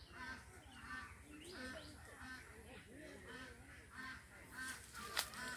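A bird calling over and over, short calls at about two or three a second, with a sharp click near the end.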